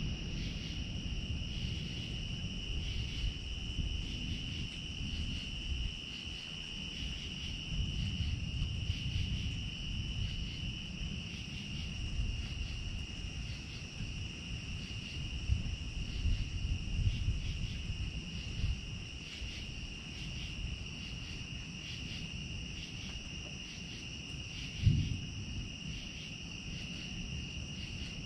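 Crickets chirping in a steady, evenly pulsing trill, with a low rumble beneath and a single thump near the end.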